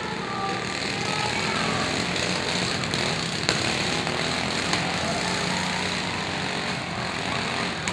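Several riding lawn mower engines running together, with sharp knocks from mowers hitting each other, the loudest about three and a half seconds in.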